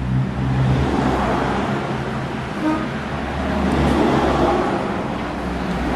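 Rusi Macho motorcycle's single-cylinder engine running after being kick-started. It is steady for about the first second, then rougher and uneven.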